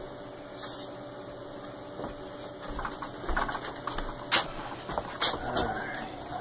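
A kitchen knife being picked up from a gas stove top and handled at a plate of bread: a brief rustle under a second in, then scattered clicks and knocks, two of them sharp in the second half, over a faint steady hum.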